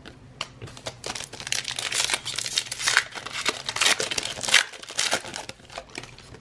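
Foil trading-card pack wrapper being crinkled and torn open by hand: a dense crackling that starts about a second in and dies down after about five seconds.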